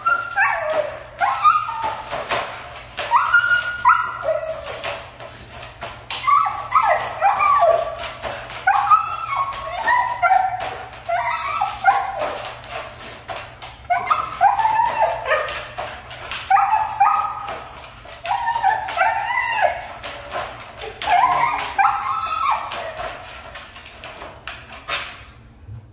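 Siberian husky shut in a wire crate, whining and yipping in repeated bursts of rising and falling calls with short pauses between them.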